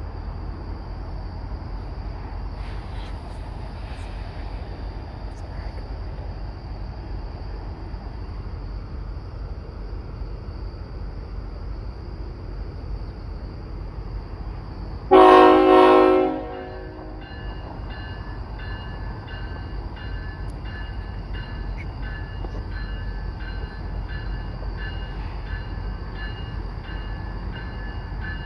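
CSX freight train's EMD diesel locomotives running with a steady low rumble. About halfway through comes one loud horn blast lasting just over a second, several notes sounding together. After it a faint high tone repeats at a steady beat.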